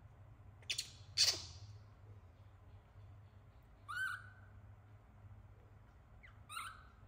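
Baby monkey giving short, shrill calls: two sharp squeaks about a second in, the second the loudest, then two shorter calls about four and six and a half seconds in.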